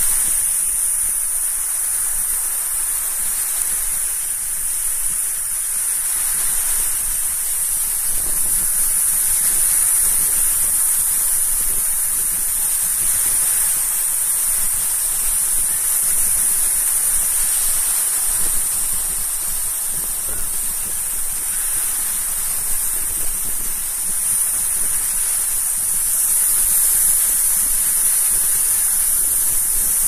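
Sea surf: small waves breaking and washing up onto a shell-and-sand beach, a steady rushing hiss of water that swells and eases gently.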